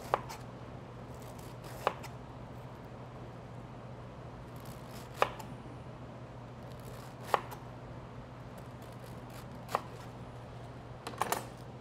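Chef's knife slicing through Savoy cabbage onto a cutting board: a sharp knock each time the blade meets the board, about seven in all at uneven intervals of one to three seconds, with two close together near the end.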